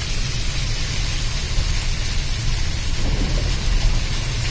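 Car tyres driving through shallow floodwater: a steady hiss of water spraying and sloshing against the underside over a low rumble, heard from inside the cabin.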